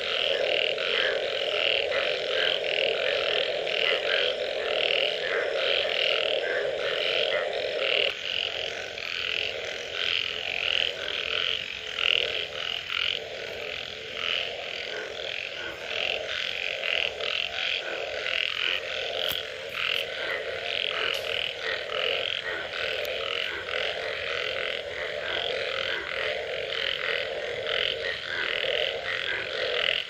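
Dense chorus of many frogs calling after rain. A lower band of calls runs continuously, then breaks into separate calls about eight seconds in, while a higher-pitched band of rapid pulsing calls keeps on throughout.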